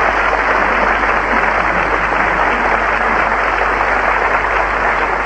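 Studio audience applauding, steady dense clapping without a break.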